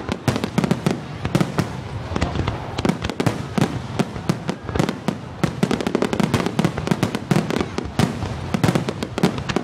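Fireworks going off in quick succession: a dense, irregular run of sharp bangs and crackles, many each second, over a low rumble.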